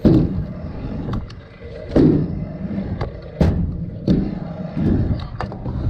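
Stunt scooter wheels rolling over a skatepark ramp, a steady rumble broken by a heavy thud every second or two as the deck hits the ramp.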